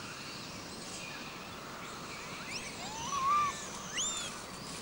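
Outdoor wildlife ambience: a steady hiss with scattered short, high chirping animal calls, and a lower rising, wavering call about three seconds in that is the loudest sound.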